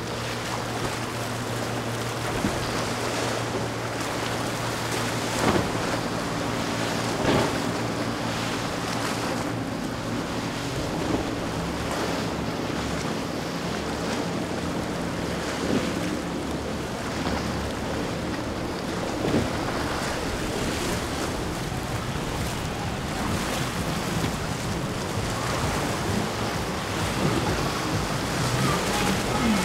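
Regulator 41 center console's outboard engines running with a low steady drone, strongest in the first third, as the boat crosses rough inlet water. Wind on the microphone and surf run throughout, with occasional splashes of the hull hitting waves. Near the end the surf grows louder as a Yellowfin 42 Offshore crashes through a wave in a burst of spray.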